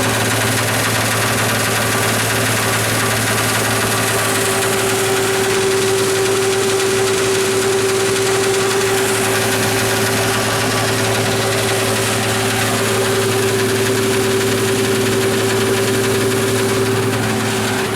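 Old farm tractor running steadily, driving silage equipment, with a constant whine above the engine hum.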